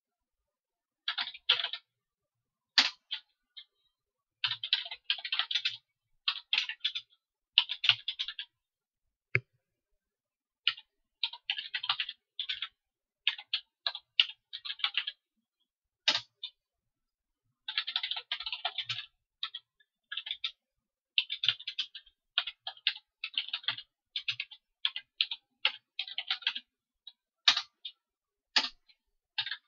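Typing on a computer keyboard in quick runs of keystrokes with short pauses between them, and a few single sharper key presses.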